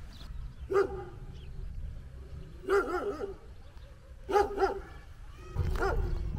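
A dog barking several times, singly and in quick pairs, with pauses of a second or more between the groups.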